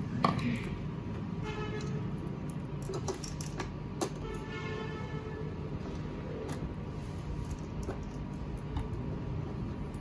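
Plastic clicks and knocks as a vacuum sealer's plastic waste canister and its hoses are handled and the canister is fitted into its snap-on holder, with a few sharp clicks, the loudest just after the start and about four seconds in, over a steady low background hum.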